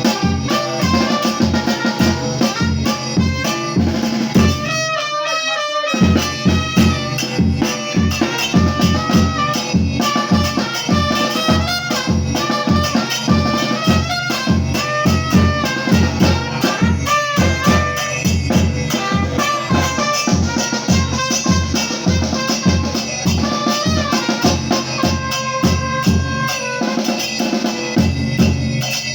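Batucada-style percussion music: a steady bass drum beat with snare-like hits and a melody line over it. The low drums drop out briefly about five seconds in, then come back.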